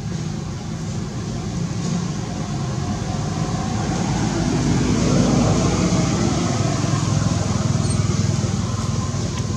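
Engine rumble of a passing road vehicle, growing louder about halfway through and holding there.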